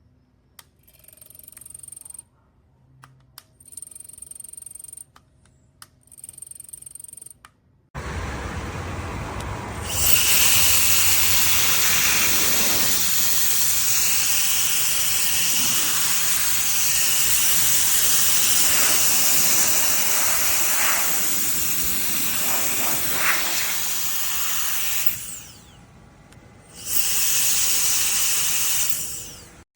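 Cordless electric air duster (a high-speed fan blower) running: three short blasts with a high whine, then a long steady rush of air with the same whine on top. It cuts out briefly near the end and starts up again for a couple of seconds.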